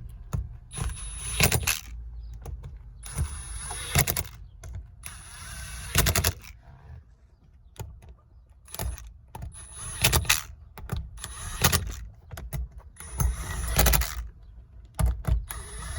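Irregular clicks, clinks and short scraping rattles of small metal sunroof hardware being handled and fitted as the glass panel is seated on its mounts.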